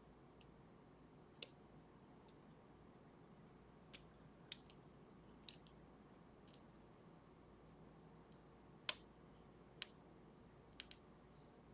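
Sparse metallic clicks of a lock pick tapping and lifting the pins inside a Kodai six-pin pin tumbler lock, about eight at irregular intervals, the loudest about two-thirds of the way through. The pick is working the high-lift front pins, which have not yet set.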